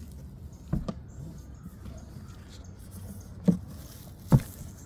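Large cardboard shipping box being opened by hand: light scuffing of the cardboard flaps and three dull thuds, about a second in, past three seconds and near the end, the last the loudest.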